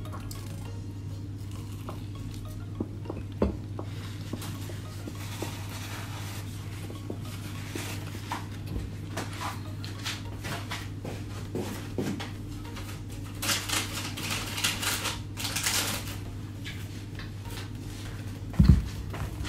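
Dishes and cutlery clinking and clattering as someone works in a kitchen, with a busier run of clatter in the middle and one loud knock near the end. A steady low hum runs underneath.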